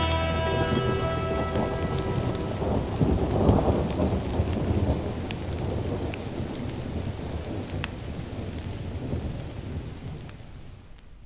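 A Soviet Melodiya vinyl LP playing the end of a track: the last notes of the music die away in the first second or two, and a recorded rain-and-thunder effect rumbles, loudest about three to four seconds in, then fades out gradually. A few surface clicks of the record come through as it fades.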